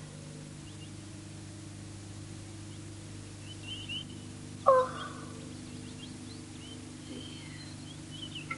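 Faint outdoor birdsong, scattered short chirps over a steady low hum, with one brief, louder falling call about halfway through.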